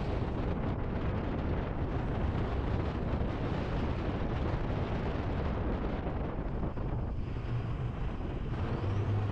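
Wind rushing steadily over the microphone of a GoPro mounted on the outside of a moving vehicle, with the vehicle's road rumble underneath. A low steady hum comes in near the end.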